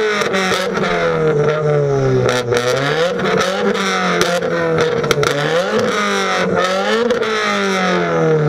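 Modified Subaru WRX's turbocharged flat-four, revved up and down repeatedly through a loud aftermarket exhaust, with a few sharp pops.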